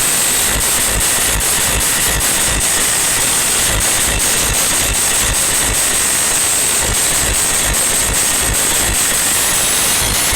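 A loud DJ road-show sound system at a sound check, its output so distorted that it comes through as a steady hissing roar, with irregular low bass thumps underneath.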